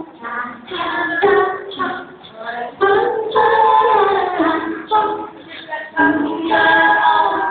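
Singing: a high voice sings a melody with long held notes over music.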